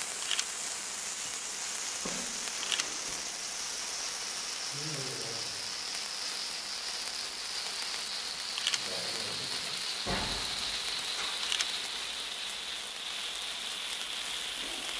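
Pyrotechnic fountain (gerb) burning with a steady, sizzling hiss of spraying sparks, its hiss slowly dropping in pitch as it burns, with a few sharp crackles.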